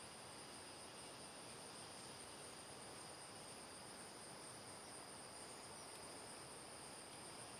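Faint, steady chorus of field insects: a continuous high-pitched sound at two pitches over a low background hiss.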